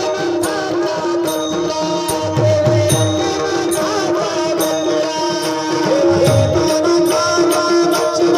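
Marathi gaulan bhajan music: tabla playing, its bass drum strokes sliding in pitch, over steady held melody notes, with sharp high clicks keeping the beat.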